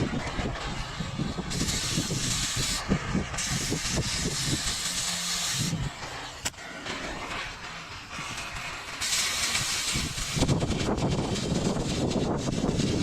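Cutting torch cutting scrap steel: a low rumble throughout, with a strong high hiss that switches on and off in three stretches, and a single sharp click about halfway.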